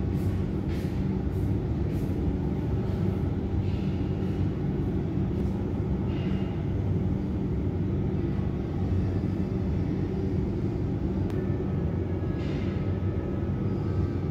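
Steady low rumble of a vehicle in motion, with a few faint soft ticks over it.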